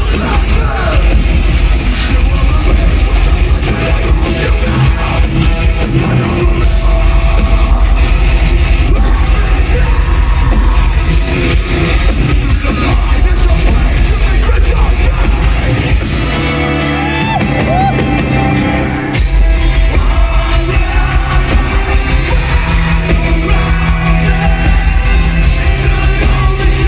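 A heavy metal band playing live in a large hall, heard from the crowd: distorted guitars, pounding drums and the vocalist's shouted vocals. About sixteen seconds in, the drums and low end drop out for a few seconds, leaving a held note, and then the full band comes crashing back in.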